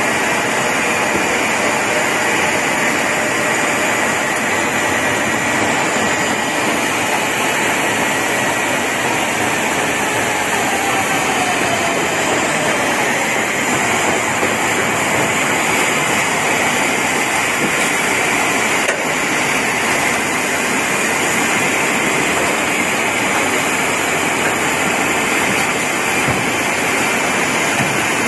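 Receipt paper roll production machine running steadily, a loud, even mechanical whir and hiss, with a faint tone sliding down in pitch about ten seconds in.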